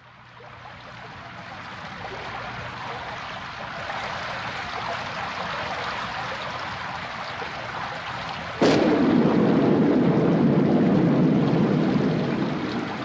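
Soundtrack sound effects: a steady rushing noise swells up over the first few seconds. About two-thirds of the way in comes a sudden loud boom, which rumbles on for a few seconds before easing off.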